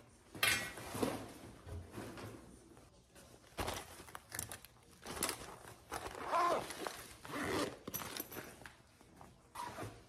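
A backpack and school things being handled and packed: irregular rustling and scraping with a few light knocks.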